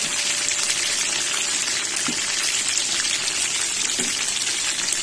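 Chicken wings frying in a pan of hot oil: a steady sizzle and crackle.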